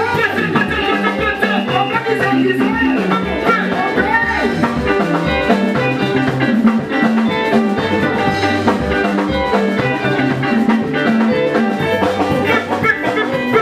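Band playing Congolese dance music: electric bass, keyboard and drums in a steady, continuous groove.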